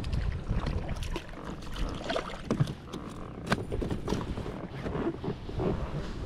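Irregular knocks, clatters and handling noise of a hooked bass being fought and brought into a fishing boat, with wind rumbling on the microphone.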